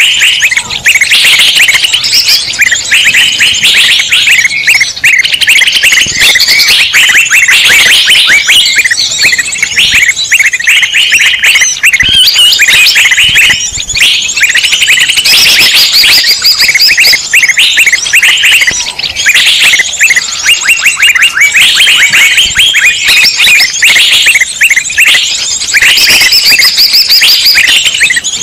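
A noisy mixed flock of many small songbirds chirping and trilling all at once, loud and unbroken: a bird-trapping lure call (suara pikat ribut) meant to draw in all kinds of small wild birds.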